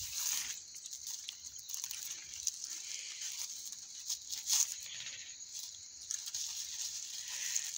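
Rustling and crinkling as a lemon branch wrapped in damp toilet paper is handled and unwrapped, with a few sharp clicks, over a steady high hiss.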